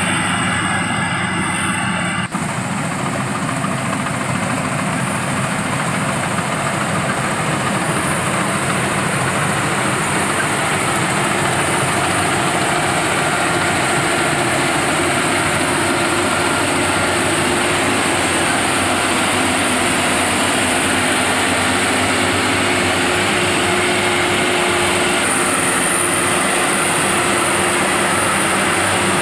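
Rice-harvesting machine's engine running steadily, with a dense mechanical din. The sound changes abruptly a little over two seconds in, then stays steady.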